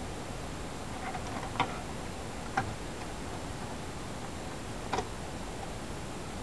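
Steady background hiss with a few short, sharp clicks: two about a second apart, then a third a couple of seconds later.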